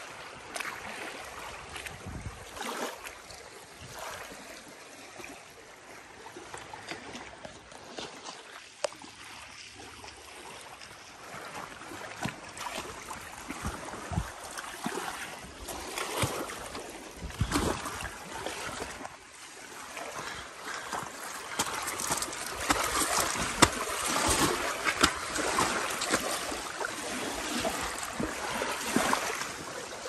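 Lake water lapping and splashing at the shore, with many scattered sharp clicks and knocks through it; the sound grows louder about two thirds of the way in.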